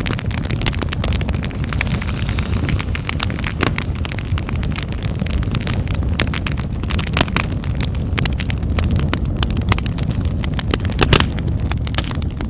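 Wood fire burning in a fireplace: constant crackling and popping over a steady low rumble, with one louder pop about eleven seconds in.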